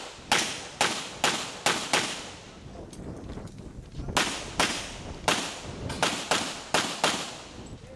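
Handgun shots fired in rapid strings on a practical-shooting course of fire. About six sharp cracks come roughly two a second, then a gap of about two seconds, then about ten more a little faster, each ringing off briefly before the next.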